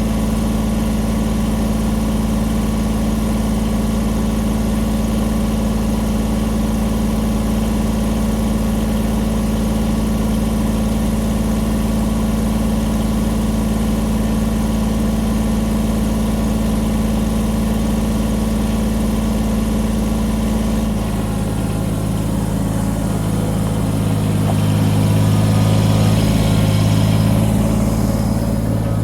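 Kubota BX23S compact tractor's three-cylinder diesel engine running steadily. About two-thirds of the way through its note changes, and near the end it runs louder.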